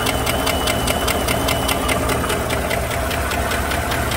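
A GM 5.3 V8 engine running with a sharp, even valvetrain tick, about five ticks a second, loudest on the passenger-side bank. The tick comes from a bent number 4 exhaust pushrod that has come off its rocker arm but is still pushing it slightly.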